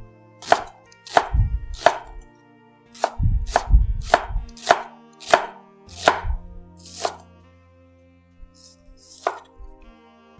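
Chef's knife cutting a white onion on a cutting board: about ten crisp chops at an uneven pace of one or two a second, then a pause and one last cut near the end.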